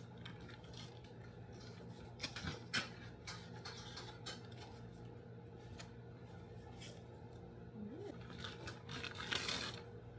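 Unboxing a Polaroid camera: scattered clicks, taps and scrapes of cardboard and plastic packaging being handled, with a longer rustle near the end.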